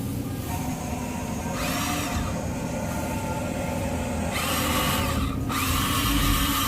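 Small electric motors of radio-controlled construction models whining in short spurts, their pitch rising and falling, then rising and holding steady near the end, over a steady low hum.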